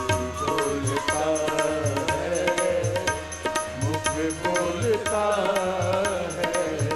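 Instrumental devotional bhajan music: a melodic line gliding and ornamented over a hand-drum beat, with a deep drum stroke about once a second.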